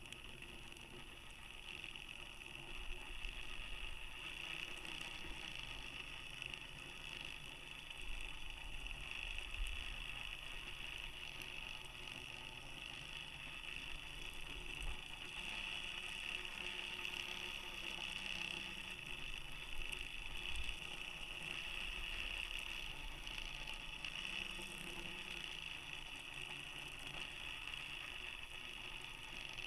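Steady hissing noise from inside a high-altitude balloon payload, strongest in a high band, with irregular low rumbles.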